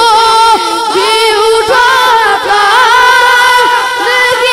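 A boy's high voice singing a naat into a microphone, drawing out long, wavering held notes in a melismatic line.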